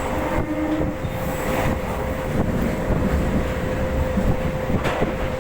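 Passenger train running as it pulls out of a station: a steady low rumble under a constant hum, with a sharp click near the end.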